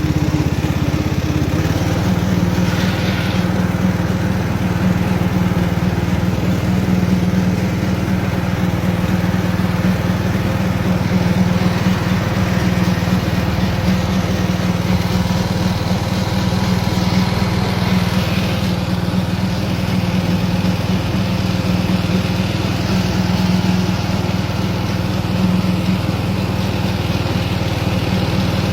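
Riding lawnmower's engine running steadily as the mower is driven along, a constant low drone with no let-up.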